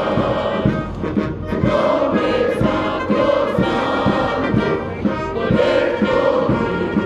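A large massed body of cadets singing a hymn in unison with a military band, sung phrases over a steady beat.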